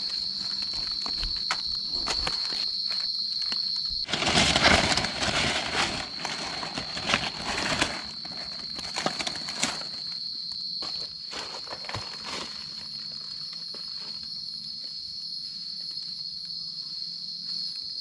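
A steady high-pitched insect drone, with rustling and crackling in dry leaf litter and twigs that is loudest from about four to eight seconds in, then thins to scattered snaps.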